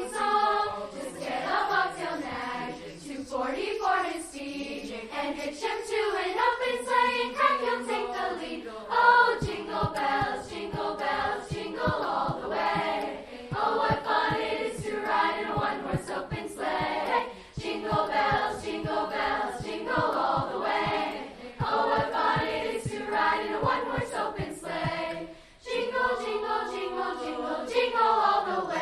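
Student choir singing a Christmas piece, with a soft steady beat joining about nine seconds in.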